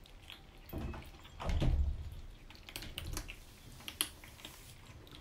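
Kittens crunching dry kibble from ceramic bowls: irregular small crunches and clicks of teeth and bowls, with a louder dull knock about one and a half seconds in.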